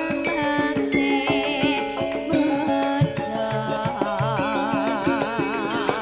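Javanese gending music: sustained pitched gamelan notes over frequent hand-drum strokes, with a wavering vibrato melody line above from about four seconds in.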